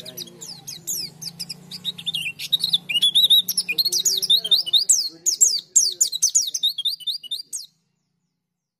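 Caged white-eye (pleci) singing a fast, jumbled run of high chirps and trills, louder from about two and a half seconds in, then cutting off abruptly about a second before the end.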